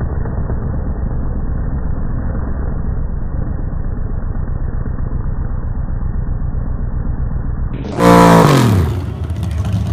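Chevy S10 drag truck's engine during a burnout, its sound slowed down and muffled, low and steady. About eight seconds in it returns to normal speed: a loud burst of high revs whose pitch falls quickly as the engine comes off the throttle.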